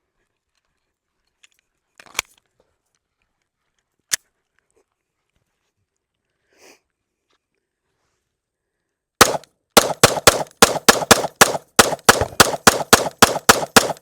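Sig M18X 9mm pistol fired in a rapid string, about four to five shots a second, beginning a little after nine seconds in. Two sharp clicks come earlier, about two and four seconds in.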